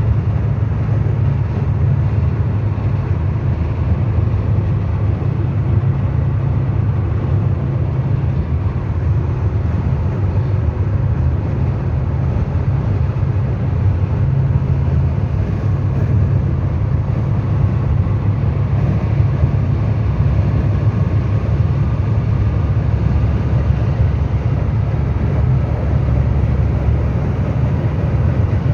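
Rushing air, a steady low rumble that goes on without a break.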